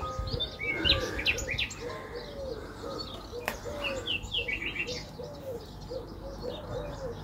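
Birds chirping, with a short arching call repeated about twice a second and scattered higher chirps. One sharp knock about halfway through.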